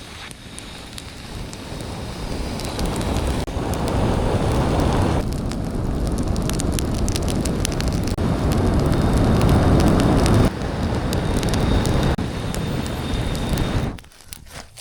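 Small campfire catching and burning, crackling and popping, under a heavy rumble of wind on the microphone. The sound shifts abruptly several times.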